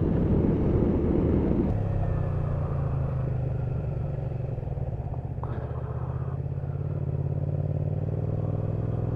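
A Honda VTR250's V-twin engine running steadily as the motorcycle rolls along at low speed. Less than two seconds in, the rushing noise over it falls away, leaving the even engine note.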